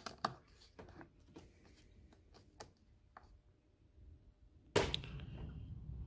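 Scattered faint clicks and taps of a screwdriver working out the screws that hold the rear cover of a steering wheel. Near the end a steady low noise starts suddenly.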